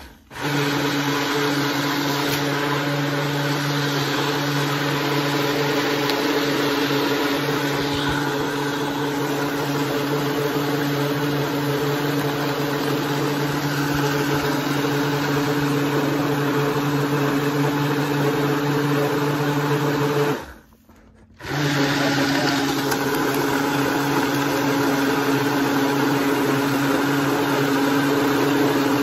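Countertop blender motor running at a steady pitch, blending a pink fruit smoothie in its jar. It stops for about a second roughly two-thirds of the way through, then starts again.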